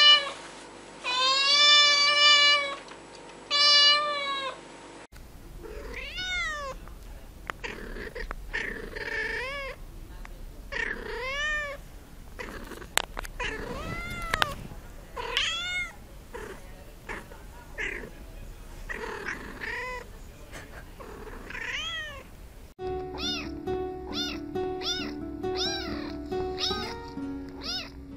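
Cats meowing. A white cat gives three loud, drawn-out meows in the first few seconds. Then a tabby kitten mews over and over, short rising-and-falling mews every second or two, quickening to about two a second near the end over background music.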